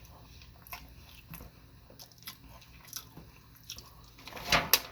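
A person chewing a mouthful of sushi, with small wet mouth clicks, louder about four seconds in.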